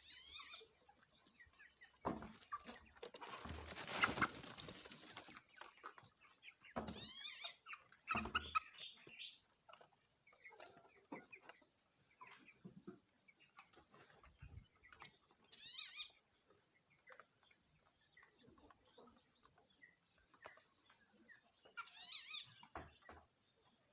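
Chickens calling in short series of high, sloping notes, with scattered light taps and a loud rustling burst about two to five seconds in.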